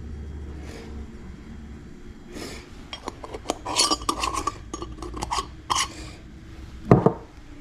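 Kitchen clatter as spices go into a bean pot: a run of light clinks, taps and rattles from spice containers and utensils, with a sharper knock near the end, over a low steady hum.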